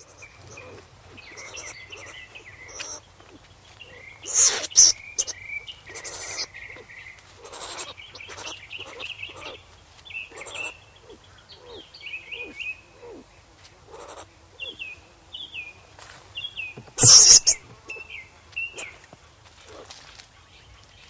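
Skunk squeaking: a long run of short, high chirping squeaks, some falling slightly in pitch, with two louder hissing sounds about four and seventeen seconds in.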